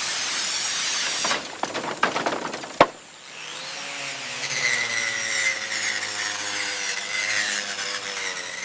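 Power tool at work: a steady abrasive scraping, a few sharp knocks, then the tool running with a steady whine.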